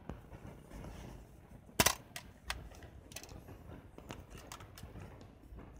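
Clicks and handling sounds from a Canon EOS 5 35 mm film camera as its back is opened and the film cartridge handled. One sharp double click about two seconds in is the loudest, followed by lighter scattered clicks.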